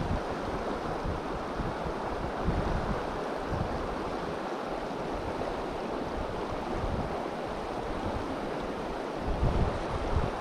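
Shallow river water rushing steadily over rocks, with wind buffeting the microphone now and then, strongest near the end.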